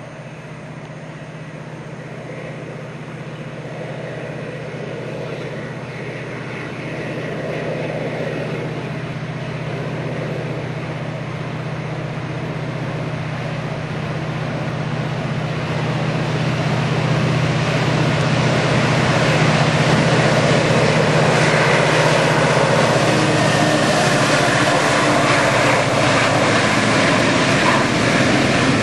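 Diesel freight locomotives hauling a long train of hopper wagons: a steady low engine drone that grows louder as the train approaches, then stays loud from about two-thirds of the way in as the locomotives and wagons pass, with the noise of wheels on the rails.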